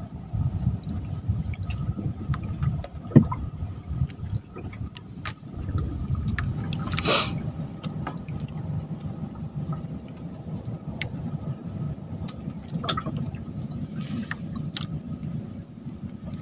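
Water sloshing and lapping, with scattered small clicks, a sharp knock about three seconds in and a short splash about seven seconds in.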